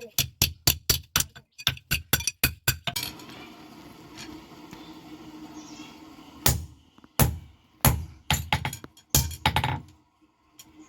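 Hand hammer striking iron on an anvil: a fast run of ringing blows, then a few seconds of steady hum, then slower, heavier blows about two-thirds of a second apart.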